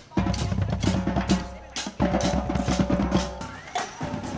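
Drum-driven music with a steady beat: kick and snare hits with cymbal strikes over a sustained low bass.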